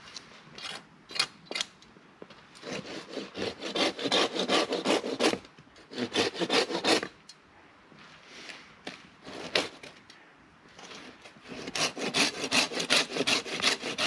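Hand saw cutting into a fallen tree trunk. It comes in several runs of quick back-and-forth strokes, with short pauses between them.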